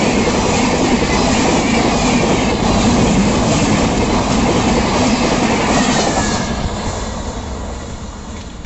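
Chennai Rajdhani Express coaches passing close at high speed, with a steady rush of wheels on rail and coach bodies. About six seconds in the last coach goes by and the sound fades as the train pulls away.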